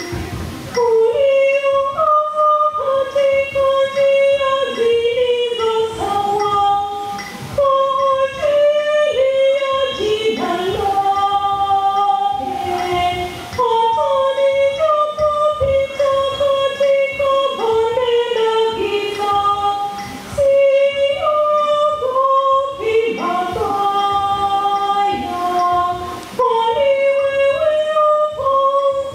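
A woman singing solo without accompaniment: a slow melody of held notes in phrases, with short pauses for breath between them.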